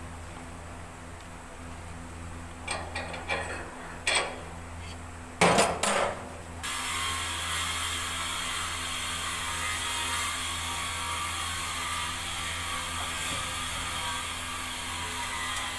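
Metal hand tools clinking and knocking a few times during an engine oil and filter change. A steady hiss then starts suddenly and carries on over a low hum.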